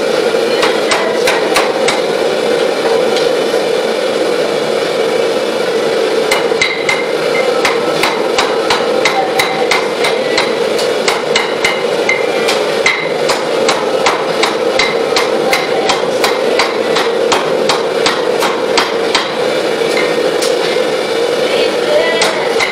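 Hand hammer striking a red-hot bar of mild steel on an anvil: a steady run of blows, some with a short metallic ring, forging a rough knife shape. The blows sit over a steady rushing noise.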